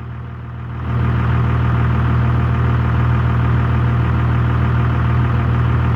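Truck engine running steadily at a low drone, stepping up in loudness about a second in and then holding even.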